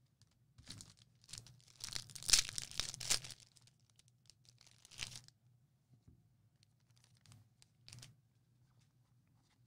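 A sealed pack of 2020 Bowman Draft baseball cards being torn open, its wrapper tearing and crinkling for a few seconds and loudest about two seconds in. A shorter rustle of the wrapper follows about five seconds in, and a faint one later.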